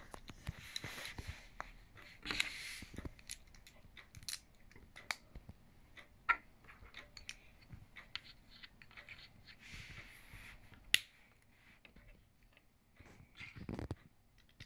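Plastic LEGO bricks being handled and pressed together: scattered sharp clicks with bits of soft rustling, and one louder click about eleven seconds in.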